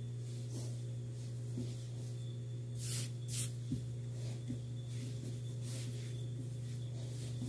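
Hands kneading sticky bread dough on a countertop: soft, faint squishing and brushing, with two louder swishes about three seconds in. A steady low hum runs underneath.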